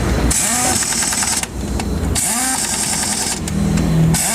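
Impact wrench running in repeated bursts of about a second, each spinning up with a rising whine and a fast rattle, driving bolts home while a truck differential is being fitted.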